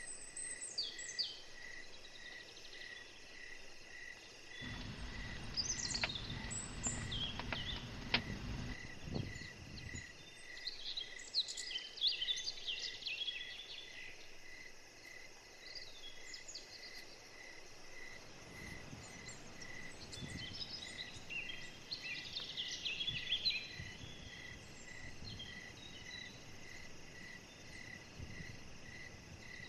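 Outdoor ambience of an insect chirping steadily at about two pulses a second, with birds calling now and then. A low rushing noise starts about five seconds in and stops around ten seconds in.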